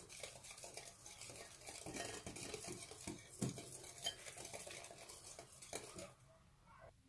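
Cocoa whipped-cream mix and milk being whisked by hand in a bowl: a quick run of clicking and scraping of the utensil against the bowl, which stops about six seconds in.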